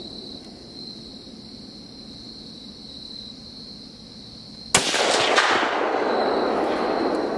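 A single gunshot fired at a buck: one sudden sharp crack about three-quarters of the way in, followed by a long rolling echo that fades over the next couple of seconds. Before and under it runs a steady high insect buzz.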